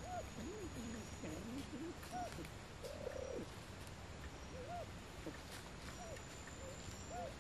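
Siamese fireback pheasants calling softly: a string of short, low arching notes, some single and some longer and wavering.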